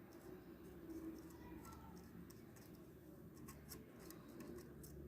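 Near silence: a faint low hum, with a few light clicks and scratches of small-tool handling about three and a half seconds in.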